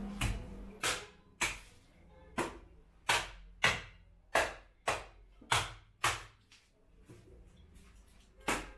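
Butcher's cleaver chopping mutton on a wooden stump block: about ten sharp chops at roughly one and a half a second, a short lull, then one more chop near the end.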